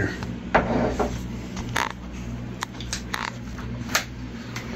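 A few short, sharp clicks and clinks of small metal cat-food bowls being handled, over a steady low hum.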